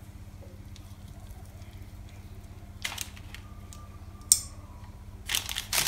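A metal cookie cutter and chocolate cookie dough being handled on a plastic-wrapped counter, over a steady low hum. There is a faint rustle about three seconds in and a sharp metallic click a little after four seconds, then crinkling near the end.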